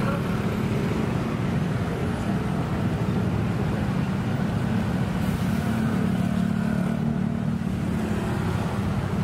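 Steady low engine drone and road noise of a motorcycle moving through town traffic, a little louder partway through.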